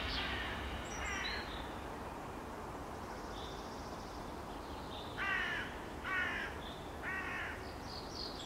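A crow cawing outdoors: one harsh call about a second in, then three more about a second apart near the middle, over faint steady outdoor hiss.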